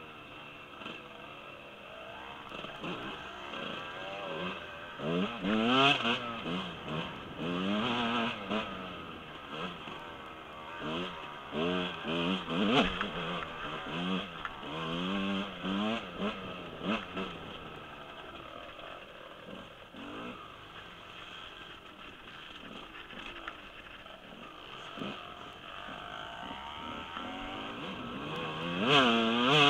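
Husqvarna 125 dirt bike engine, heard from the rider's helmet, revving up and down again and again as the throttle is worked. It settles into steadier, lower running for a while past the middle, then climbs again near the end.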